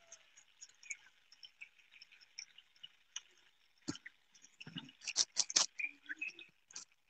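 Faint scattered clicks and ticks, with one sharp click just before four seconds in and a quick cluster of louder clicks about five seconds in.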